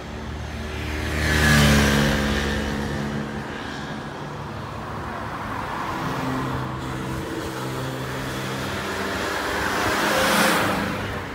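Road traffic: cars passing close by on the street, one swelling and fading about a second and a half in and another near the end, with steady traffic noise between.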